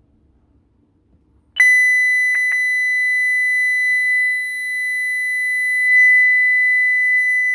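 Honeywell ProA7 alarm panel's medical panic alarm going off during a test: a loud, steady, high-pitched tone that starts about a second and a half in and holds without pulsing.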